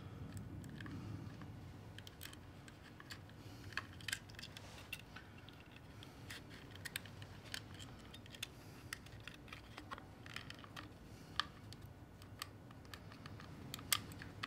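Scattered small clicks and taps of plastic and metal as the digital readout unit of a Mitutoyo height gage is handled and fitted back onto its slider, over a faint low hum; the sharpest click comes near the end.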